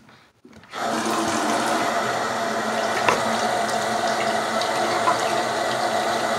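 Bathroom sink faucet turned on about a second in, then water running steadily into the basin.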